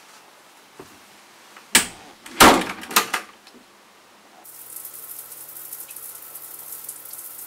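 A few sharp clicks and rattles at a door, its knob and latch. About four and a half seconds in, a shower starts spraying water with a steady hiss and a low hum.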